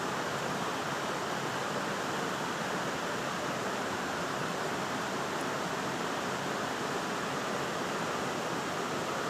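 Steady rushing of flowing water in a small canal, an even, unbroken noise.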